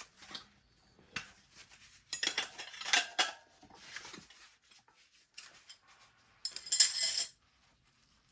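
Metal tire irons clinking and scraping against a dirt-bike wheel rim as the tire bead is levered on, in scattered clicks and short scrapes, the loudest scrape near the end.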